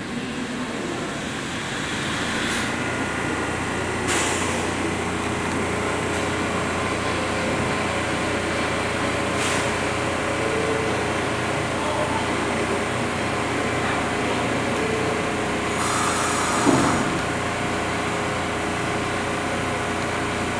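An R160 New York City subway train standing at the platform: a steady hum from its running equipment, broken by several short hisses and one longer hiss near the end.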